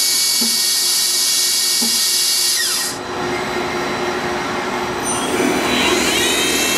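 Star SA16R CNC Swiss lathe spindle whining at a steady high speed, then winding down with a falling pitch about three seconds in. Near the end a spindle spins up with a rising whine and holds at speed: the sub spindle matching the main spindle's speed before it picks off the part.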